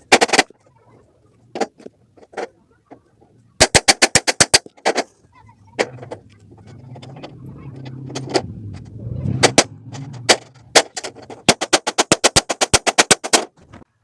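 Metal shop shutter clattering in rapid runs of sharp strikes, about ten a second, with a low hum swelling in the middle.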